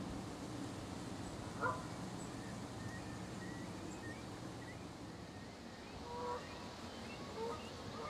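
Canada geese honking: one loud honk about a second and a half in and two softer ones near the end, with faint high chirps in between.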